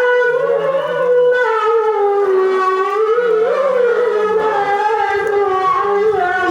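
A man's voice chanting Qur'an recitation in a long, high held note that wavers slowly up and down in ornamented turns, without a break.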